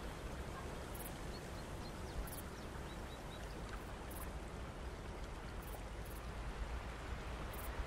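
Quiet outdoor ambience: a steady hiss with a low rumble underneath, and a few faint, short high chirps in the first few seconds.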